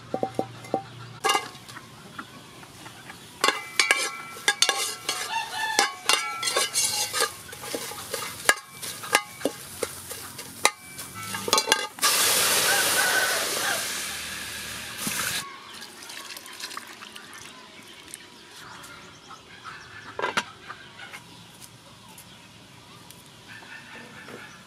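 Pieces of shallot, garlic, lemongrass and lime leaf dropped into an empty aluminium pot, many knocks and clinks ringing off the metal. About twelve seconds in, water is poured into the pot with a loud rush that lasts about three seconds, after which it is much quieter, with a few faint knocks.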